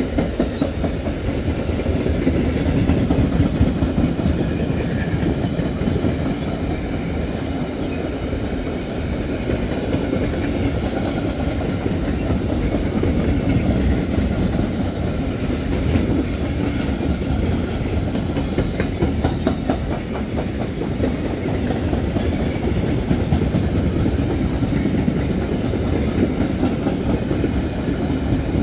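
Freight train of covered sliding-wall wagons rolling past close by: a steady rumble of wheels on rail, broken by a running series of sharp clicks as the wheels cross rail joints.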